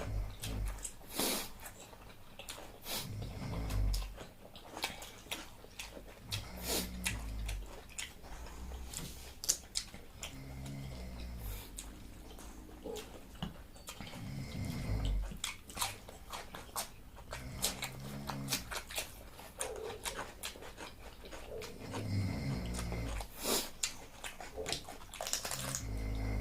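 Snoring: a low rumbling breath that comes back about every three to four seconds, with scattered sharp clicks and taps of eating and chewing in between.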